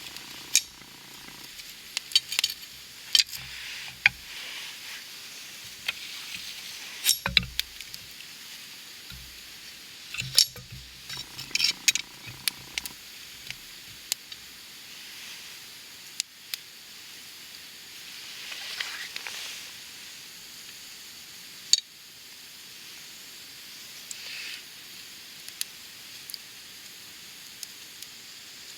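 Wood campfire burning, crackling with irregular sharp pops over a steady hiss; the loudest pops come about 7, 10 and 22 seconds in.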